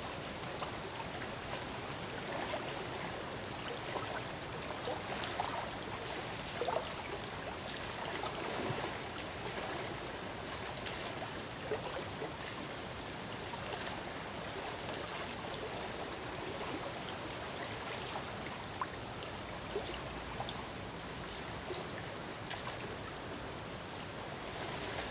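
Small wind-driven waves lapping and splashing against a lake shore: a steady wash of water broken by many small splashes.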